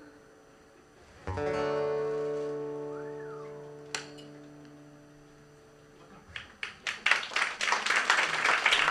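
A final strummed chord on an acoustic guitar, ringing out and slowly fading. About six seconds in, scattered claps begin and quickly build into audience applause.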